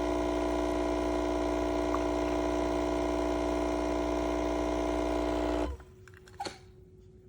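Single-serve espresso maker's pump buzzing steadily as it brews, then cutting off suddenly near the end as the brew cycle finishes. A light clink follows about a second later.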